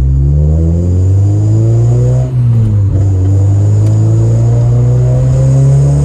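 Honda Civic Si's K24Z7 2.4-litre four-cylinder with a catless downpipe and cat-back exhaust, heard from inside the cabin while accelerating. The engine note rises, drops at an upshift a little over two seconds in, then climbs again more slowly in the next gear.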